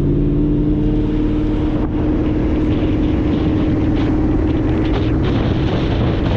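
Audi R8's V8 engine running at a steady cruise, a continuous drone with road and tyre rumble underneath; the pitch dips slightly about two seconds in and then holds steady.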